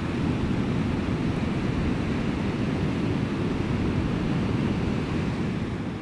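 Steady rush of sea water against rocks, with wind noise on the microphone, starting to fade at the very end.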